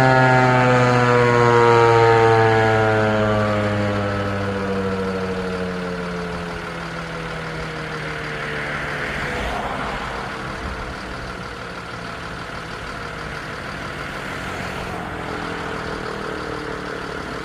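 ASC T-128 AC/DC tornado siren winding down after a growl test, a brief power-up that checks the siren works. Its tone falls slowly in pitch and fades over about ten seconds.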